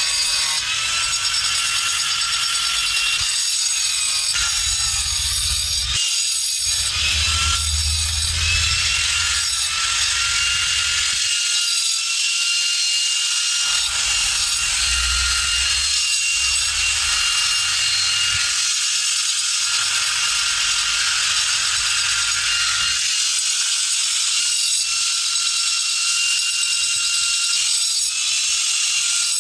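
Workshop tool noise from cutting and shaping work: a steady high whine with rasping, scraping noise over it and a low rumble that comes and goes every few seconds.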